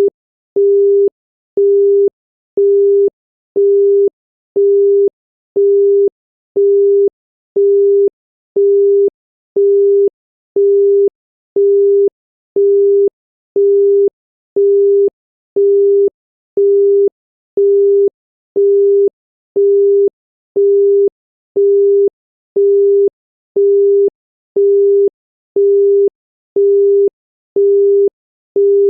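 New Zealand telephone busy tone: a single 400 Hz tone beeping half a second on, half a second off, signalling that the called line is engaged.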